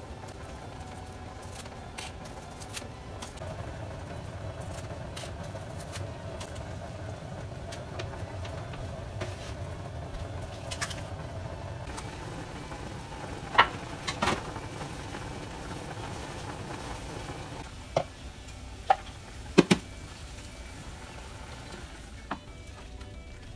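Stovetop cooking sounds: a steady hiss and hum with a hamburger steak frying in a pan, and a handful of sharp clinks and knocks of utensils against the pots and pans, most of them in the second half.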